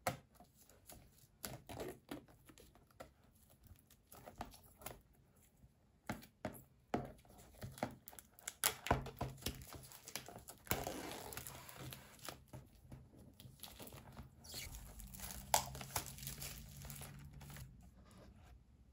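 Clear plastic shrink-wrap being torn and peeled off a cardboard oil pastel box, crinkling. Scattered taps of fingers on the box come first, and the crinkling is densest from about nine seconds in.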